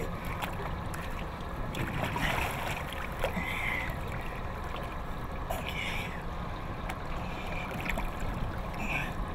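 Water sloshing and splashing at the side of a boat where a large goliath grouper is held in the water, with a few short splashes over a steady low background rush.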